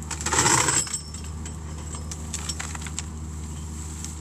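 Kubota mini excavator's diesel engine running steadily under load while its Rockhound 40EX brush-mulcher head grinds into dry brush, with a loud shredding burst for most of the first second. Scattered sharp ticks and clinks follow as chips and sticks are thrown from the head.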